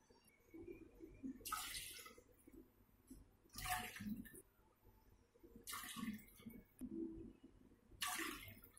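Milk poured from a cup into a non-stick kadai: four short, faint splashing pours about two seconds apart.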